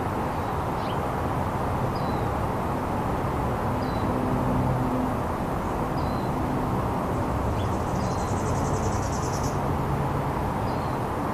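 Outdoor ambience: a steady low rumble, with a bird chirping a short falling note every one to two seconds and a brief buzzy trill about eight seconds in.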